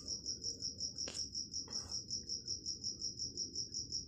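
A cricket chirping steadily, a high trill pulsing about seven times a second, with a single short click about a second in.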